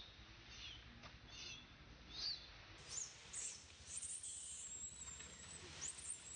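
Infant long-tailed macaque squealing: repeated short high-pitched cries that rise and fall, with one longer held cry about five seconds in. These are a baby monkey's distress calls at being rejected by an adult female.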